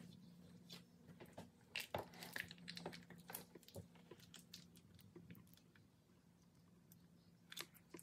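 Faint sticky crackling and squelching of beeswax honeycomb being pulled apart and handled with gloved hands to crush out the honey, busiest in the first half, over a low steady hum.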